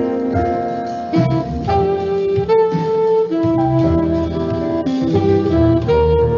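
Instrumental jazz background music: a melody line of held notes over plucked guitar and bass, with no voice.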